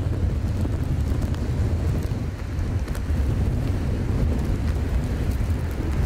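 Strong storm wind buffeting the microphone in a steady low rumble, with storm surf breaking along the shore beneath it.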